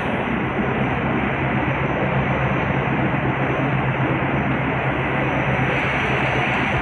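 Pet food extrusion production line running: a steady, loud mechanical noise from the screw extruder and its motors, with a constant low hum underneath.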